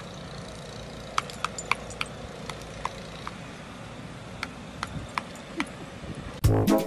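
Scattered, irregular light metallic clicks and ticks over a steady hiss. Brass music comes in suddenly near the end.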